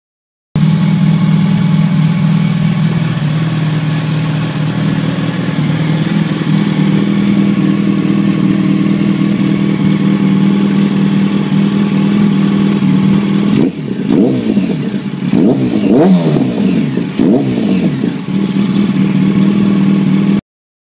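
Yamaha FZ1's inline-four engine through a MIVV Suono steel slip-on muffler, idling steadily. About two-thirds of the way through it is revved in several quick throttle blips, then drops back to idle.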